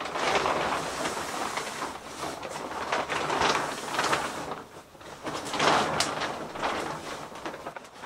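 Packaging being handled and opened: rustling and crinkling in several loud swells, with small clicks and scrapes.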